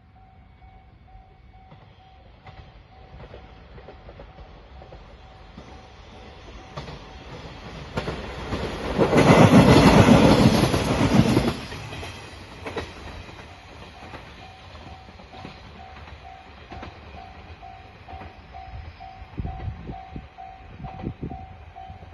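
Level-crossing bell ringing in a steady pulsing beat, about two strikes a second. About eight seconds in, a diesel train passes through the crossing, loud for about four seconds and drowning out the bell, which then comes back.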